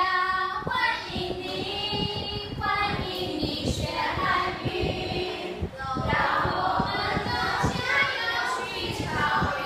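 Women's and young voices singing a Chinese song together, led by two women singing from a song sheet before a class.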